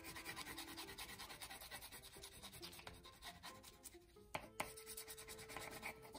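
White crayon scribbled fast back and forth on construction paper, a faint, even scratching of quick strokes while snow is coloured in, with a couple of sharper taps about four and a half seconds in. Quiet background music with held notes underneath.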